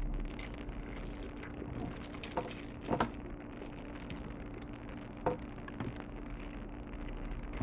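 A person eating macaroni and cheese: quiet chewing with a few soft clicks of a metal fork against a ceramic bowl, the sharpest about three seconds in. A faint steady hum lies underneath.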